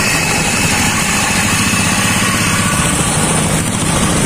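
Diesel engine of a homemade BSA-style motorcycle running steadily while it is ridden, a rapid, even chugging.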